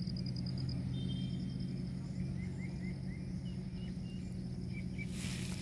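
Outdoor ambience: insects, most likely crickets, trilling in a steady pulsing high buzz over a constant low hum, with a handful of short high chirps around the middle and a brief burst of hiss near the end.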